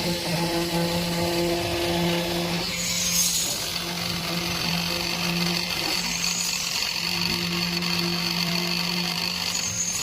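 A machine's motor running steadily with a droning hum, its tone swelling and fading every second or so.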